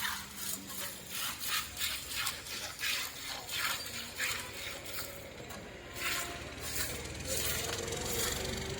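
A cow being milked: streams of milk squirting into a pail in a steady rhythm of about three squirts a second.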